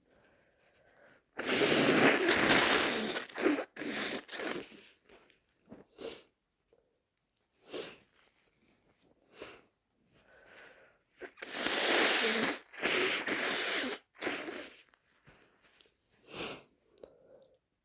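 A person with a heavy head cold sneezing and blowing their nose, two long loud blasts about ten seconds apart, with short sniffs in between.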